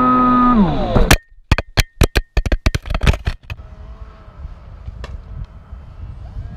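A model plane's motor and propeller whine loudly at a steady pitch, then wind down and stop about a second in. A run of sharp clicks with near-silent gaps follows for a couple of seconds. The rest is the faint, wavering whine of distant model-plane propellers over a low wind rumble on the microphone.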